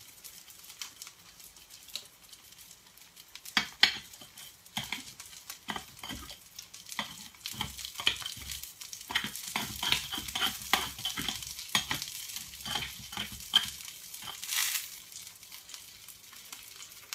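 Künefe frying and sizzling in an aluminium künefe plate on the hob. From about four seconds in, a metal spatula scrapes and taps at the plate's rim in many short strokes, easing off near the end.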